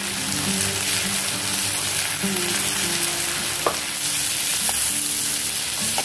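Cluster beans sizzling in hot oil in a steel kadhai while a wooden spatula stirs them, with one sharp knock of the spatula against the pan about midway.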